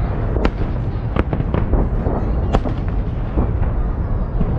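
Fireworks salute volleys: a continuous low rumble of booms, broken by sharp cracks of shells bursting about five times.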